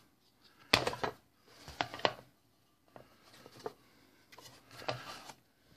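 Handling noise from a Gambler cigarette-injector machine as its rubber bottom cover is fitted back on: a few scattered clicks and knocks with light rubbing between them.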